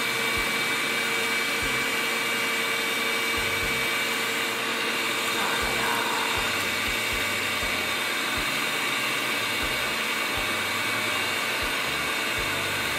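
Electric stand mixer running steadily, its beaters whirring through chocolate cake batter in the bowl.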